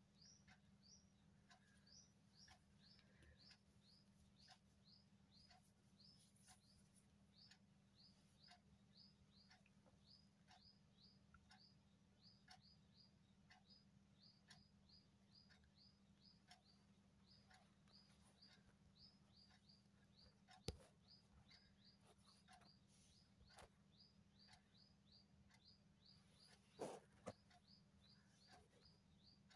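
Near silence: faint room tone with a low hum, and a short high chirp repeating evenly, about two or three times a second, throughout. A sharp click comes about two-thirds of the way in, and two louder clicks come near the end.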